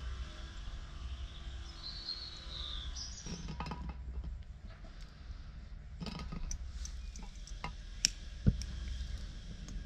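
Metal clinks and knocks of a camping gas burner and its butane canister adapter being handled and set in place. The knocks come in scattered clusters, with one sharp knock near the end the loudest.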